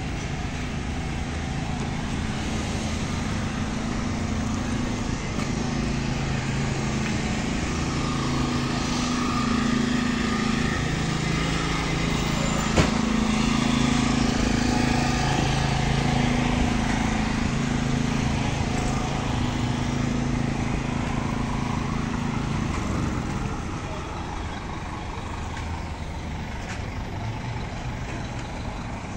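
A vehicle engine running steadily with a low hum, dying away about 23 seconds in, among outdoor traffic noise and distant voices. There is one sharp click about halfway through.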